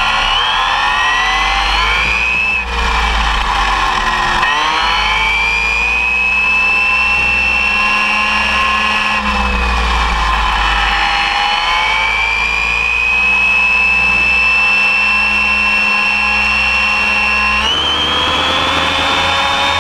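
Arrma Typhon 6S buggy's brushless electric motor whining at speed, rising in pitch with each burst of throttle and briefly dropping off once early on. It is heard over the low rumble of tyres on asphalt.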